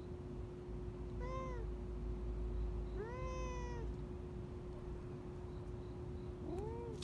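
A street cat meowing three times, short calls with a longer, drawn-out meow between them.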